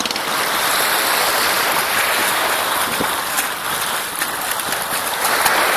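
Shallow sea water splashing and churning as a snorkeler swims face-down, kicking his feet at the surface, with scattered sharper splashes.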